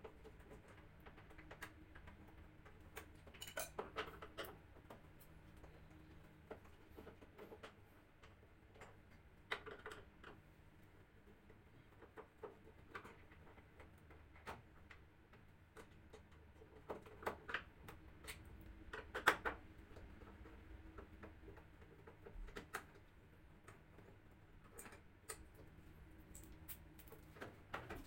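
Scattered clicks and knocks of hands and a screwdriver working the plastic top panel of a washing machine loose, some in quick little clusters, over a faint steady hum.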